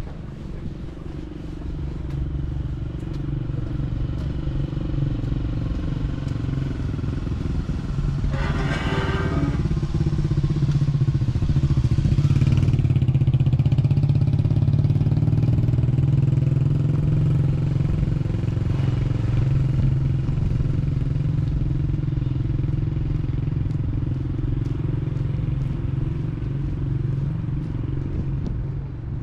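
An engine running steadily with a low hum, growing louder toward the middle and then slowly fading as it passes. A short, higher-pitched sound cuts in briefly about a third of the way through.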